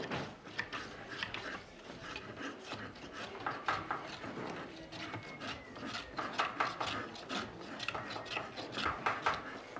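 Hand tools rasping and scraping on wood in many short, irregular strokes, as wooden ship-model parts are shaped by hand.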